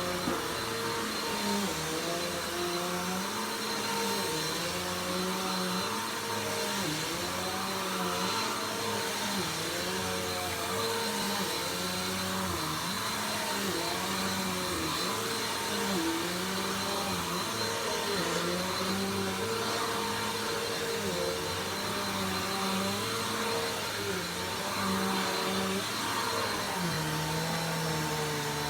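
Vacuum cleaner running continuously while vacuuming, its motor pitch wavering up and down in a regular rhythm over a steady airflow hiss, then settling lower and steadier near the end.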